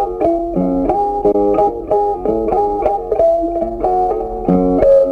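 Background music: a plucked-string melody with quick, evenly paced notes.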